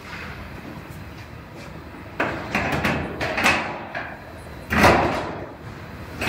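Steel Ford F-150 bedside panel clunking and knocking against the truck's bed structure as it is lifted and set in place. A run of knocks comes about two seconds in, and a heavier bang follows near five seconds.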